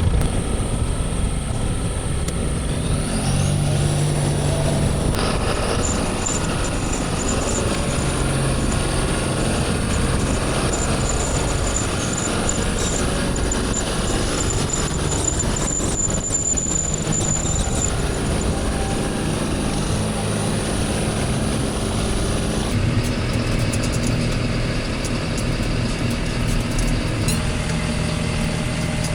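A vehicle's engine running steadily as it drives, heard from on board.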